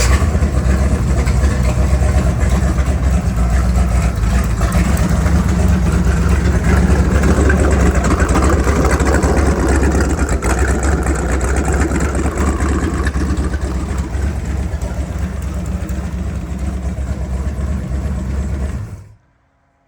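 Inboard boat engine driving a newly installed Berkeley jet pump, idling steadily with the boat out of the water and no cooling water going to it, then shut off abruptly near the end. The owner hears no unusual noise and feels no vibration from the new drive.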